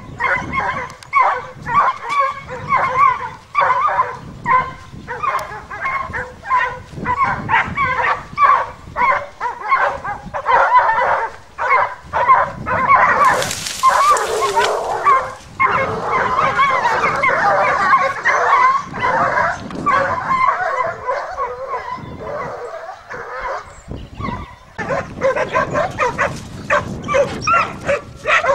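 Beagle giving tongue as it hunts through cover: a fast, continuous run of high yelping bay calls, several a second, that falters briefly near the end and then picks up again. About halfway through, a brief hiss of brush rustling rises over the calls.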